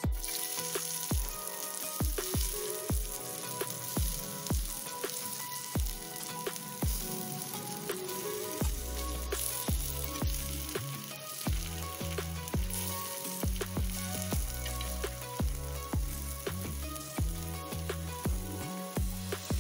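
Coated elephant foot yam slices shallow-frying in oil in a pan, with a steady sizzle. Background music with a steady beat about twice a second plays over it, and a bass line comes in about halfway through.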